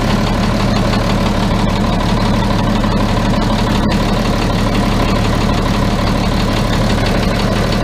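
Yuchai diesel engine of a front loader idling steadily while still cold, with the throttle eased back.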